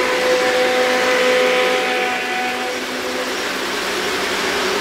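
O-scale model trains running past on three-rail track: a steady whir of motors and wheels, with a held whine that fades out a little over halfway through.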